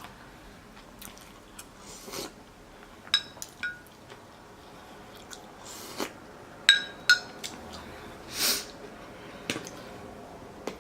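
Close-up eating sounds from a meal of beef curry and rice: chewing, with a utensil clicking against a dish a few times in two short clusters and a few breathy sniffs between.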